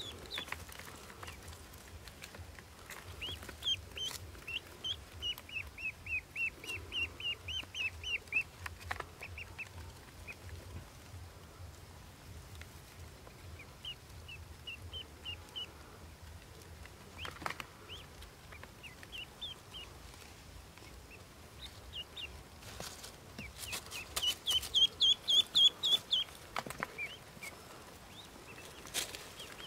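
Ducklings peeping in runs of rapid, short, high-pitched calls. The loudest run comes near the end. A few sharp clicks from handling fall in between.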